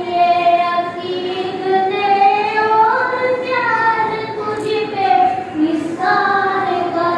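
A boy singing a poem solo and unaccompanied into a microphone, in long held notes that glide from one pitch to the next.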